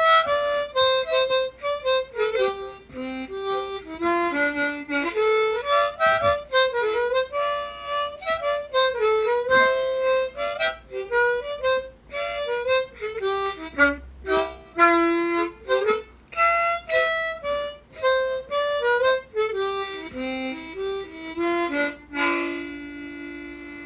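An old, oversized harmonica (mouth organ) with extra low notes plays a brisk tune as a run of quick single notes. It ends on a held chord about 22 seconds in that fades away.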